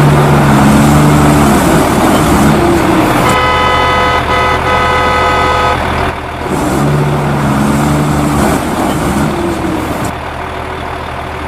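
Vehicle engine sound with a steady horn tone from about three seconds in, lasting over two seconds. The engine pattern rises and falls in pitch and recurs in the same shape later on, like a repeated sound effect.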